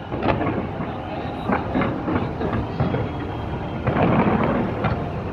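Fireworks exploding in quick succession: a dense run of bangs and crackles over a continuous rumble, which thickens into a heavier rolling rumble about four seconds in.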